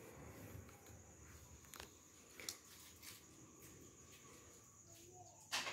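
Small plastic toy trucks handled on a tiled floor: a few faint clicks and knocks, with one sharper click near the end, in a quiet room.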